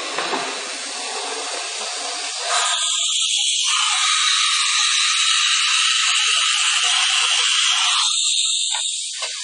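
CNC router with a linear automatic tool changer running, a steady hiss that turns into a louder, higher hiss about two and a half seconds in and drops back near the end.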